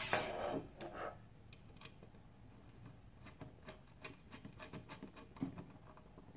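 Faint, irregular small ticks and clicks as a threaded antenna connector is turned by hand onto a router's antenna port, after some light handling noise in the first second.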